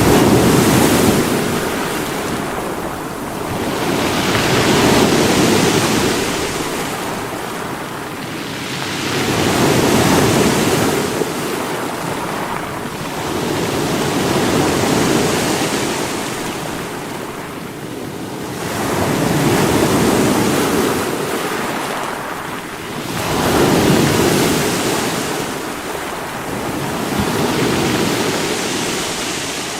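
Sea waves breaking on rocks, a continuous rush of surf that swells and eases in slow surges about every four to five seconds.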